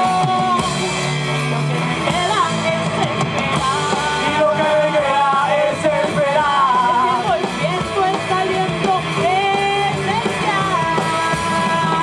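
Live band performing: a woman singing lead into a microphone over electric guitars and drums.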